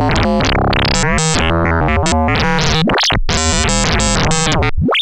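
Eurorack modular synthesizer playing a fast, shifting run of pitched electronic notes that keep changing in pitch and tone, with a brief break about three seconds in.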